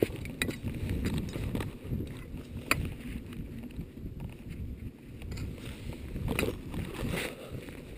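Wind buffeting the microphone with a steady, uneven rumble. A few sharp clicks and knocks come through it, from the climber's ice axe, carabiner and rope being handled against rock and snow.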